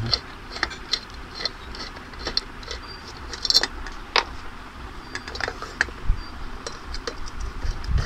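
Scattered small metal clicks and clinks as a screwdriver works out the screws around a ceiling fan's motor housing and loose screws and nuts are handled, with a brighter ringing clink about three and a half seconds in.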